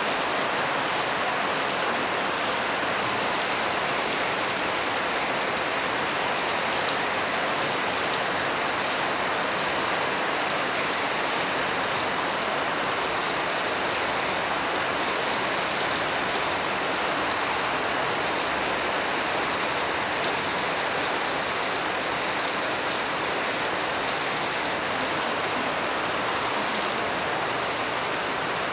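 Steady, even rushing hiss with no clicks, knocks or rhythm.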